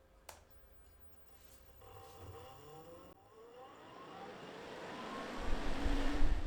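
Audi PWM-controlled electric radiator fan spinning up. After a single click, a whine rises in pitch and grows louder from about two seconds in, and near the end a loud rush of air from the fan buffets the microphone.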